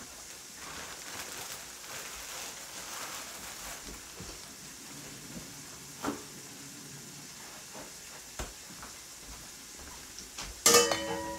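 Pot of coconut milk and gungo peas simmering on the stove with a soft steady hiss and a few faint knocks. Near the end a metal lid is set on the pot with a loud clang that rings on.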